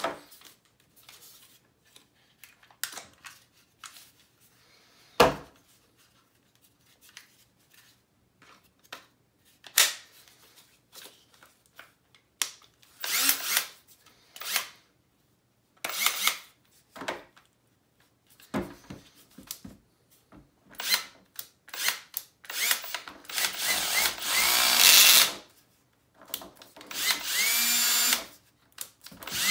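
Milwaukee M18 compact hammer drill/driver running unloaded in two trigger pulls in the latter part, its motor pitch sliding up and down with the trigger. Before that come scattered clicks and knocks from the drill, battery pack and plastic case being handled.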